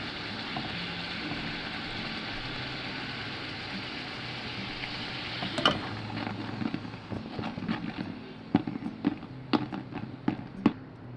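Spinach puri deep-frying in hot oil in a steel kadai, a steady sizzle. About halfway through the sizzle dies down, and a run of sharp pops and clicks follows, loudest near the end, as the puri is lifted out.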